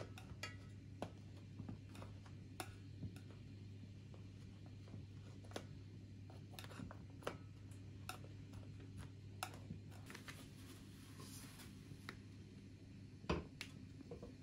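Scattered light clicks and taps of kitchen utensils against dishes, with one louder knock near the end, over a low steady hum.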